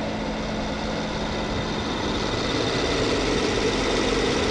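Rolls-Royce Wraith's 6.6-litre twin-turbo V12 idling steadily with the hood open, growing slightly louder toward the end.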